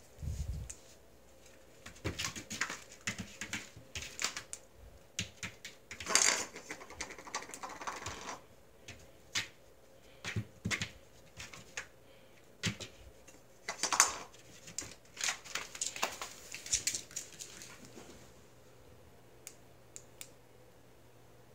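Kittens' claws and paws skittering and scrabbling on a hard wood-look floor: irregular quick clicks in bursts, with a denser scramble twice. A low thump at the very start.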